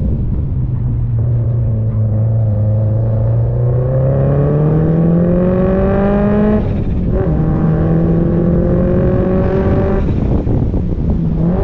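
Performance car's engine and exhaust under hard acceleration. The revs climb steadily for about six seconds, break off for a quick upshift, then pull up again from a lower pitch before the note drops away about ten seconds in. Wind noise runs under it all.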